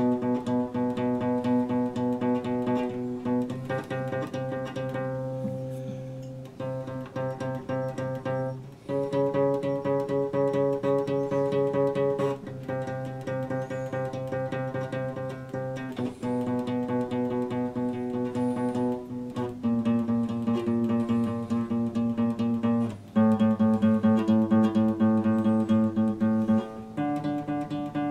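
Epiphone acoustic guitar played solo, picking quickly through a chord progression with the chord changing about every three seconds, with no singing.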